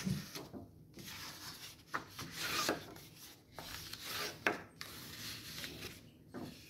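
A sheet of paper being folded and its creases pressed flat by hand: a series of irregular rubbing and scraping swishes of skin and paper against paper, with a few sharper snaps as the folds are pressed.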